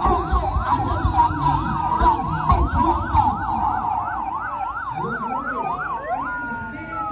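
Several ambulance sirens sounding together: a fast yelp rising and falling about three times a second over a steadier tone, giving way about five seconds in to slower wails and a falling tone near the end.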